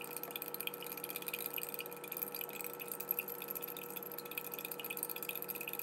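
A spoon stirring sugar into water in a glass mason jar: a quick, steady run of light clinks and taps against the glass, with the swish of the liquid.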